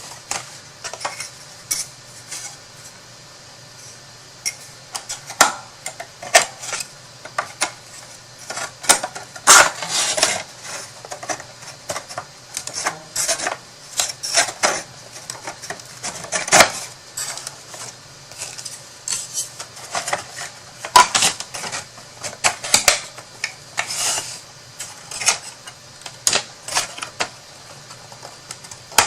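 Thin cut wooden pieces of a craft storage box being handled and fitted together: irregular sharp clicks and taps, several a second at times, with longer gaps in between.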